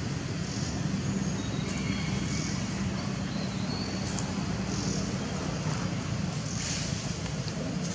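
Steady low outdoor background rumble, with faint short high chirps recurring about once a second.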